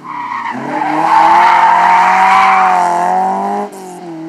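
Historic rally car's engine revving hard as the car powers out of a loose-surface bend, the pitch climbing and then held high, with a sharp drop near the end like a gear change before it pulls on more quietly. A hiss of tyres on gravel runs with it.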